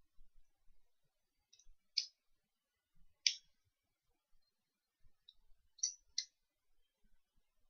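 Sharp clicks of hard plastic toy parts being handled, about six of them at irregular intervals, the loudest about three seconds in.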